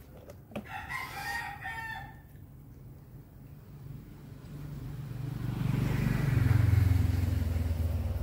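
A rooster crows once, about a second in. Later a low rumble swells up and becomes the loudest sound, easing off slightly near the end.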